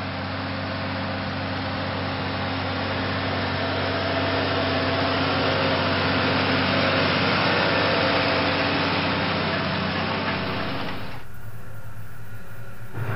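Tractor's diesel engine running steadily while pulling a harrow, growing louder as it passes close by. About eleven seconds in it gives way to a quieter, lower engine hum from a telehandler running in a shed.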